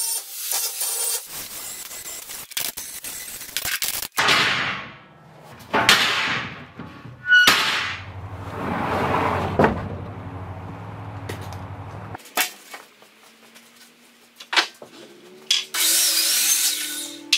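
A quick string of workshop sounds: an angle grinder on steel tubing at the start, then separate short power-tool runs and sharp knocks as steel and lumber are handled.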